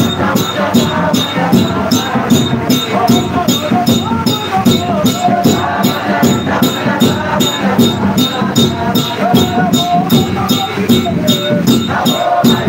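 A congregation singing together over a fast, even percussion beat of about three strokes a second, with a shaker-like jingle on each stroke.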